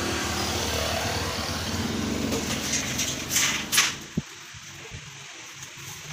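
Steady rumble of a motor vehicle engine running close by. About three and a half seconds in come a few short knocks and a sharp click, and the rumble cuts to a much quieter background.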